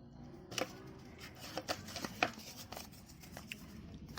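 Hands handling the packaging of a motorcycle alarm kit: irregular light rustles and a few sharp clicks, starting about half a second in.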